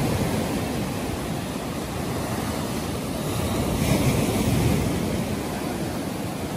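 Sea surf breaking and washing up a sandy beach, swelling louder about four seconds in as a wave comes in.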